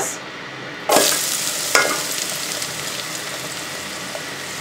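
Chopped onions tipped into hot oil in an electric rice cooker's pot. The oil sizzles up suddenly and loudly about a second in, surges again a moment later, then settles into a steady frying sizzle.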